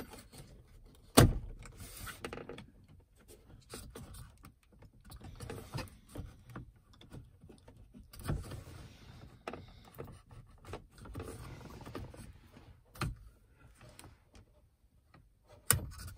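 Plastic clicks and creaks from a Honda Pilot's overhead map light assembly being wiggled loose from its clips in the headliner, with the sharpest click about a second in and a few more later.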